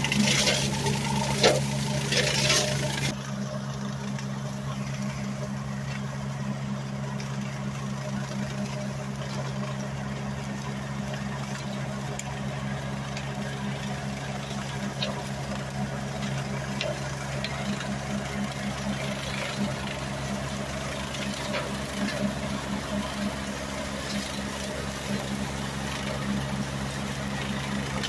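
Utility vehicle's engine running at a steady idle with an even hum. A louder rushing noise over it stops about three seconds in.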